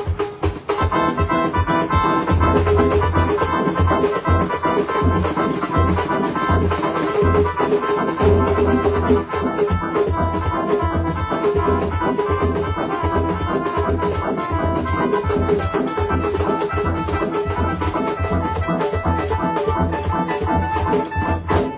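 Band music with a steady bass beat and sustained melody lines.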